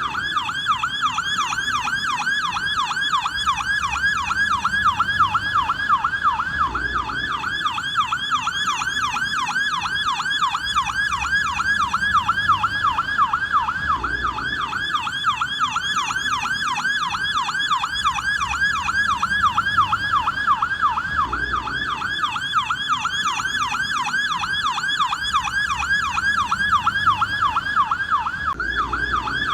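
American police car electronic siren on its yelp setting: a steady, rapid up-and-down wail repeating several times a second.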